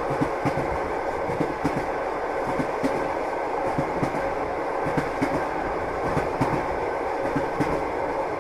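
A train running along the track: a steady rumble with repeated clacks of the wheels over rail joints, two or three a second.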